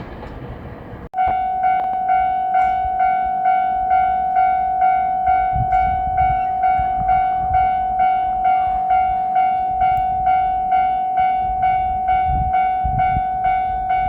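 Japanese level-crossing warning bell ringing its repeated 'kan-kan' strike, a little over two per second, starting abruptly about a second in. Before it, passing-train rumble.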